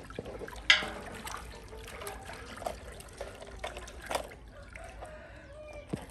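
A baby macaque pawing at and jumping around a plastic toy alligator on a sandy concrete yard: scattered scuffs and light knocks, with one sharp knock a little under a second in.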